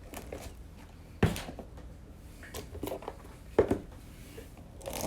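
Handling noises on a table: about half a dozen short, light knocks and clatters, the sound of cardboard hanger boxes being picked up and set down.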